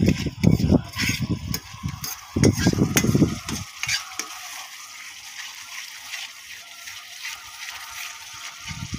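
Steel ladle stirring and scraping a masala paste of onion, garlic and whole spices around a kadhai, the paste sizzling as it fries (bhuna). Irregular stirring strokes for the first three or four seconds, then a steady, quieter sizzle.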